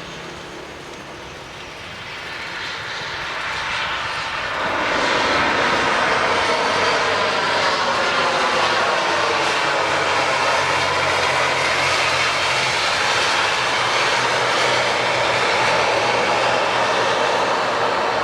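ATR 72-600 turboprop running on arrival: its engine and propeller noise grows louder over the first five seconds, then stays loud and steady with a slowly sweeping, phasing sound.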